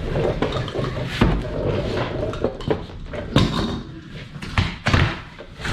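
A large cardboard parts box being opened and handled: rustling and scraping of cardboard with several sharp knocks.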